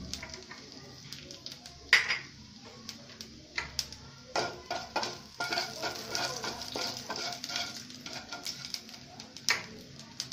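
Nigella seeds sizzling in hot mustard oil in a nonstick kadai, while a wooden spatula stirs and knocks against the pan. There are scattered clicks, and a sharp knock about two seconds in is the loudest sound.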